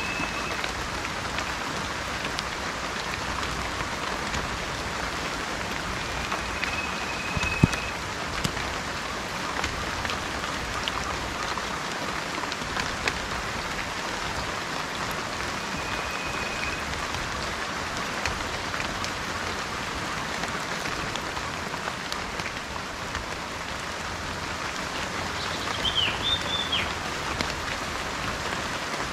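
Steady rain falling, with a bird giving a short, high, even whistled note three times and a brief chirping call near the end.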